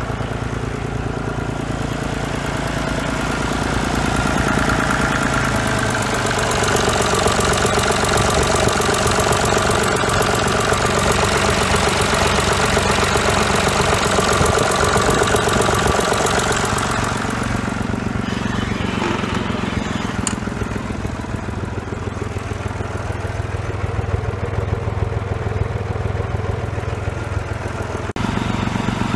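Massey Ferguson 35 tractor engine running steadily. It grows louder and brighter from about four seconds in until past the middle, then settles back.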